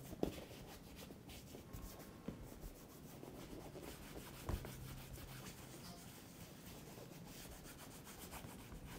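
Cloth rubbing and wiping over a leather boot's upper as cleaner lotion is worked in, a faint steady friction sound. Two light taps come through, one just after the start and one about halfway through.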